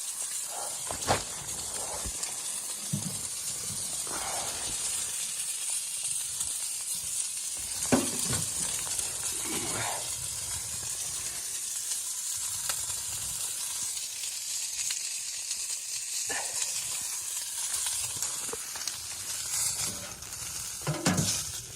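A steady, high hiss, with a few scattered soft knocks and rustles over it.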